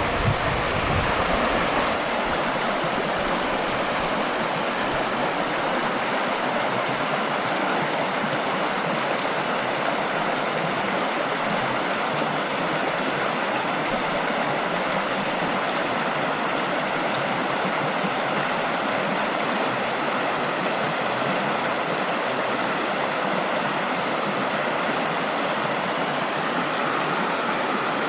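A valley stream running over rocks: a steady, even rush of water.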